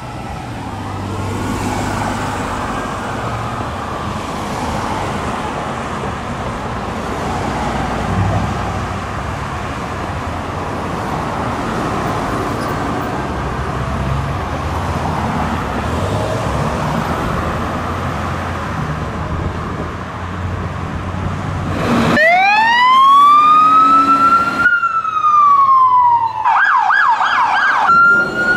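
Emergency vehicle sirens wailing faintly under steady traffic and engine rumble. About two-thirds of the way through, a loud siren wail rises in pitch, breaks off, and near the end switches to a rapid yelp.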